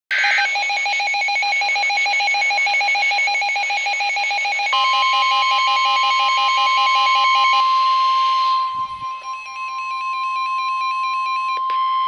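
NOAA weather radios sounding a warning alert: fast, regular electronic alarm beeping, joined about five seconds in by the steady 1050 Hz Weather Radio warning tone, which holds on. The beeping thins out at about eight seconds, and a different beep pattern runs from about nine seconds until shortly before the end.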